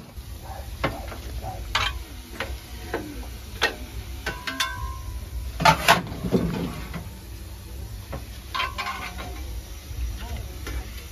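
Scattered voices and short knocks over a steady low rumble.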